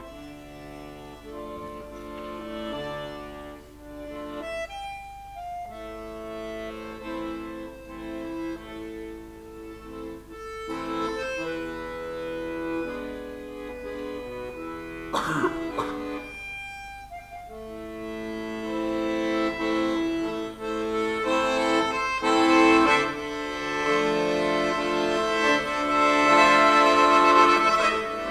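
Solo piano accordion playing slow, sustained chords and melody, growing louder toward the end, with one sharp click about halfway through.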